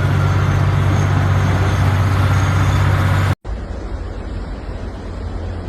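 Road vehicle engine running steadily with a low hum. About three and a half seconds in it cuts off abruptly, and a quieter steady noise follows.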